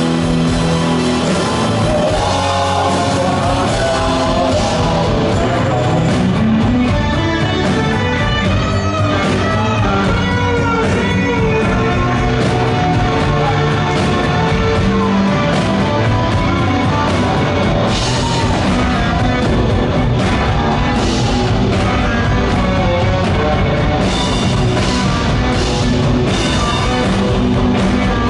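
Rock band playing live, loud and steady: electric guitar, bass guitar, drum kit and keyboard, with a man singing.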